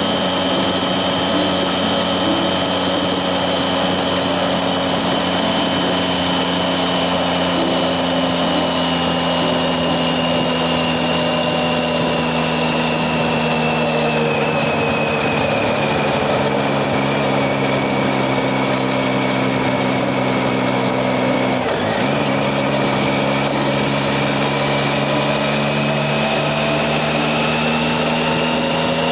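Triumph Tiger 800XC's three-cylinder engine running steadily under way, with wind rush on the microphone. Its pitch eases slowly downward past the middle, dips briefly about two-thirds of the way through, then climbs a little near the end.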